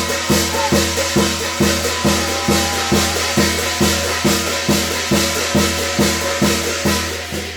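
Korean shamanic gut ritual percussion music: a drum beaten in a steady, quick rhythm of about three strokes a second, under a constant metallic jingling.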